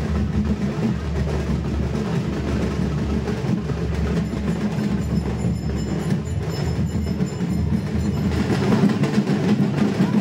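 A traditional drum band playing dense, unbroken percussion.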